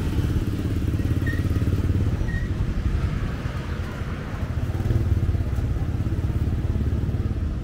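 A small engine running steadily nearby, a low even rumble.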